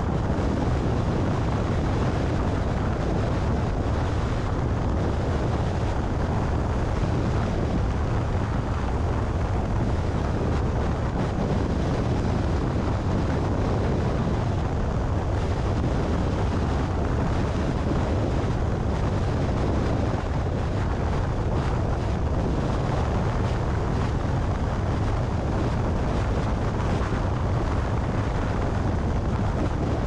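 Steady wind noise buffeting a car-mounted camera's microphone at highway speed, about 115 km/h, deep and rumbling, with the car's road noise beneath it.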